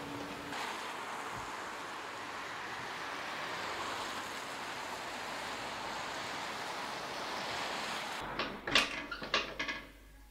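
Steady street traffic noise, with a car driving past around the middle. Near the end it cuts off suddenly and a few sharp knocks and clatters follow.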